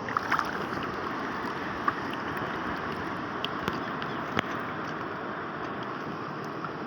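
Steady rush of water and wind around a small fishing boat at sea, with a few short clicks and knocks scattered through.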